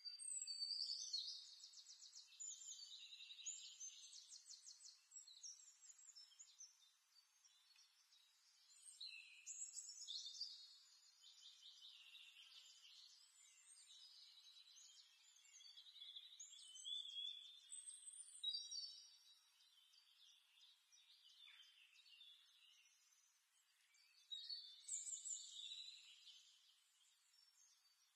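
Faint birdsong: phrases of high chirps, rapid trills and short whistles that come and go every few seconds.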